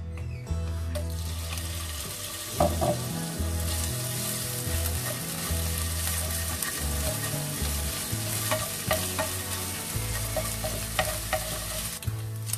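Pieces of food sizzling in hot oil in a nonstick frying pan. The sizzle starts about half a second in and gets fuller a few seconds later. A wooden slotted spatula stirs them, with a few light clicks against the pan.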